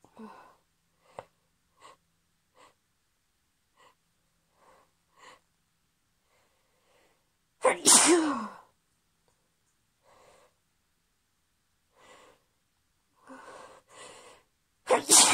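A woman sneezing from hay fever: two loud sneezes, each with a voiced cry that drops in pitch, one about eight seconds in and one at the very end. Short sniffs and breaths come between them, with longer in-breaths just before the second sneeze.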